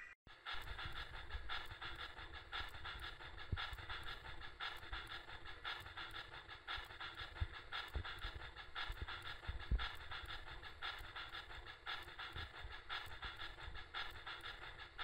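MTH HO-scale Union Pacific 4-12-2 model steam locomotive running on rollers, its onboard sound system playing even, rhythmic steam-exhaust chuffing over a low rumble from the running gear.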